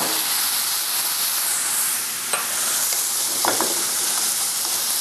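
Shrimp, clams and fish slices sizzling in olive oil in a pan while being stirred with a wooden spatula. The steady frying hiss is broken by a few sharp clicks from the stirring, about two and a half and three and a half seconds in.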